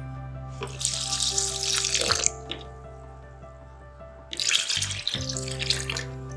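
Milk being poured from a glass into a plastic blender jar onto chopped mango and sugar, splashing in two pours of about a second and a half each, over steady background music.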